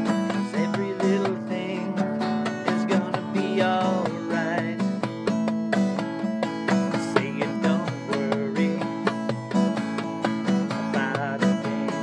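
A man singing while he strums an acoustic guitar in an even rhythm.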